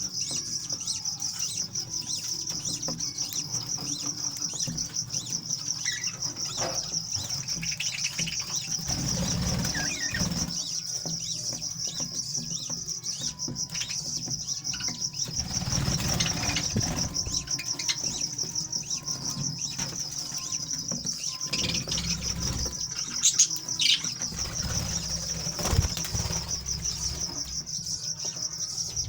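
Small parrots in a colony aviary flapping their wings and chirping now and then, with sharp short sounds about 23 to 26 seconds in. A steady high, fast-pulsing trill runs underneath throughout.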